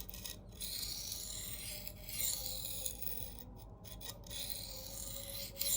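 A CPM 4V steel knife edge scraping across a coarse diamond sharpening plate in light strokes of about a second each, with short breaks between them, to weaken the burr raised on the edge.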